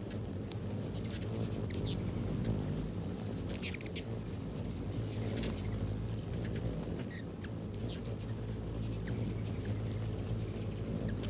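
Ruby-throated hummingbirds giving short, high, squeaky chip notes over the low steady hum of their wingbeats. Two sharp clicks stand out, one about two seconds in and one near eight seconds.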